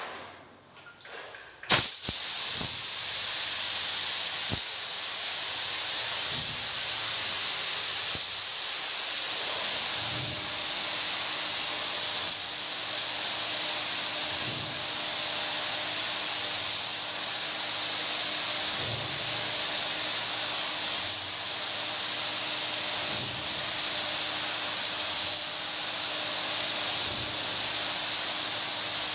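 Compressed-air spray gun spraying the lacquer top coat onto a wooden door: a steady high hiss that starts suddenly about two seconds in and runs on.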